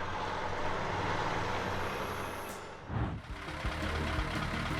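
Heavy truck engine running steadily. About three seconds in, the sound cuts to another engine running.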